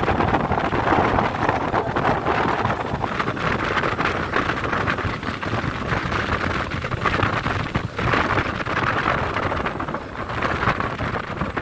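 Wind buffeting the microphone of a phone carried on a moving motorcycle, a loud ragged rushing over the vehicle's running and road noise.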